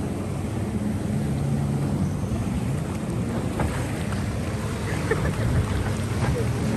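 Motor watercraft running at speed: a steady engine drone, with water rushing past and wind buffeting the microphone.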